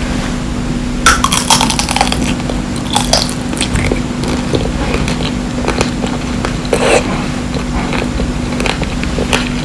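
Close-up biting and crunching of candy grapes, the hard sugar shell cracking in clusters of crisp crackles: the main ones come about a second in, around three seconds in and near seven seconds. A steady low hum runs underneath.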